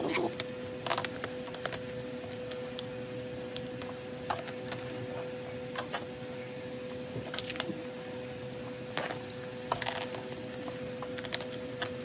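Photocards being handled and slid into clear plastic binder sleeves: scattered soft clicks, taps and crinkles of card against plastic. A steady hum runs underneath.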